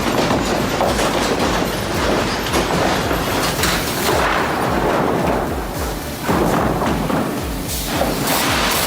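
Heavy machinery running with a dense, continuous clatter and scattered knocks and thumps; it dips briefly about six seconds in.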